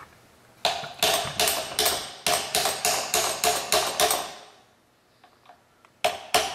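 Hammer striking a steel punch to drive a crooked-set crankshaft front seal back out of a Cummins 6BT timing cover: rapid ringing metal taps, about five a second, for roughly three and a half seconds, then a pause, and the tapping starts again near the end.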